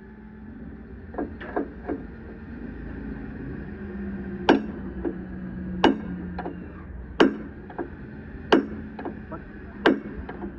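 Hammer striking metal: a few light taps, then five hard, evenly spaced blows about a second and a half apart, over a steady low hum.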